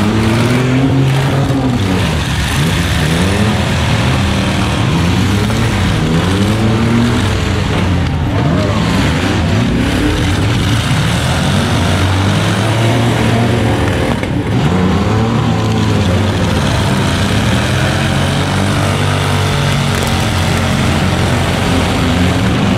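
Several demolition-derby truck engines revving hard at once, their pitches climbing and falling over one another again and again as the trucks back up and ram.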